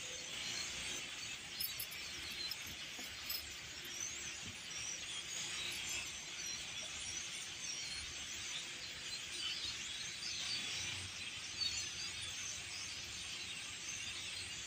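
A large flock of starlings calling together: a dense, continuous wash of many overlapping high chattering calls, with a few sharp clicks.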